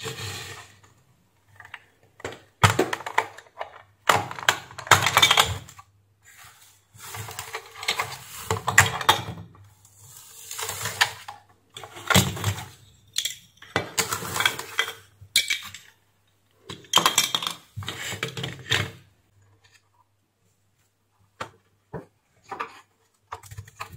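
Plastic housing of an electric steam iron being pried apart with a small screwdriver and handled: irregular clicks, scrapes and rattles of plastic parts, coming in bursts with short pauses.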